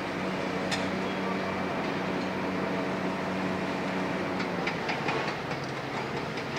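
Steady low machine hum with a few light metallic clicks and clanks. The hum's pitch steps down a little about four and a half seconds in.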